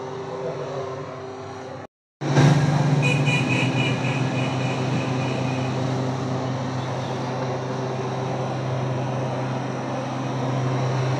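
A steady mechanical drone with a low hum, like running machinery. It cuts out for a moment about two seconds in, then comes back louder and steady.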